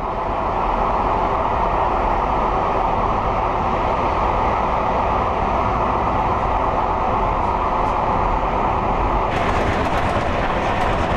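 A train running steadily along the line, a continuous rumble of wheels on rail and running gear heard from on board. The sound turns brighter about nine seconds in.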